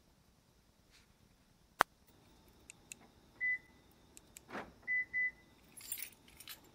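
A single sharp click about two seconds in. Then the Suzuki Jimny Sierra's keyless-entry answer-back buzzer gives one short high beep, followed about a second and a half later by a quick double beep. Keys rattle near the end.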